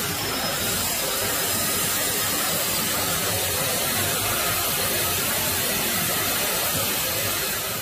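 Steady rushing noise of a jet aircraft in flight, engine and airflow together, easing slightly near the end.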